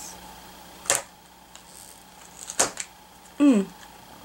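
Small scissors snipping the plastic seal of a toy blind basket: a sharp snip about a second in and another cluster of small snips and clicks around two and a half seconds. Near the end a short voice sound falls in pitch and is the loudest thing.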